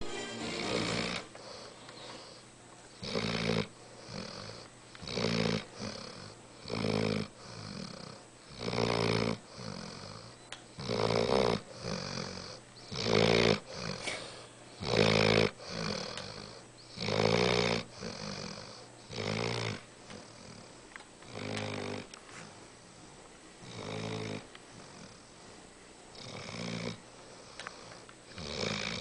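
A five-month-old Saint Bernard puppy snoring in her sleep: one snore about every two seconds, each under a second long, loudest through the middle and softer toward the end.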